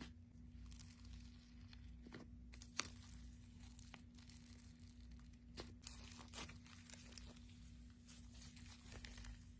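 Thick pink slime being pulled out of its tub and stretched by hand, giving faint sticky crackles and scattered soft pops as it tears apart, the sharpest pop about three seconds in.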